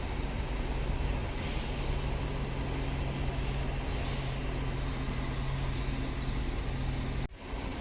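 A steady mechanical drone with a constant low hum under a noisy hiss, which cuts off suddenly near the end.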